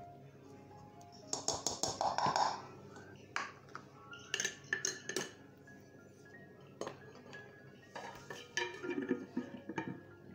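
Kitchen clatter over quiet background music: a series of clinks and knocks, loudest about one to two seconds in, as a plastic measuring cup and a metal ladle are handled around a stainless steel mixing bowl and set down on a wooden cutting board.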